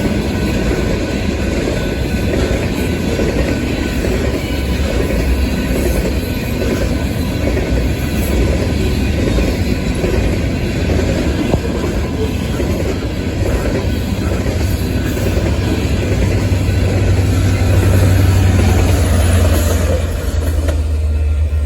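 Coal train rolling past on the rails: steady wheel and car noise with some clatter, and a deep rumble building in the last few seconds.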